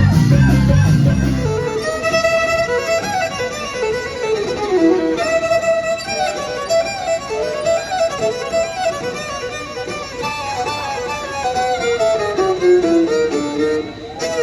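Background music carrying a violin melody with gliding notes; a heavy bass part drops out about a second and a half in.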